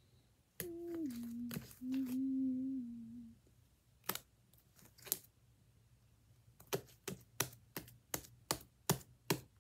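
A person hums a few held notes, then sticky slime being stretched and dropped makes a series of sharp clicks and pops, about nine in all, coming closer together near the end.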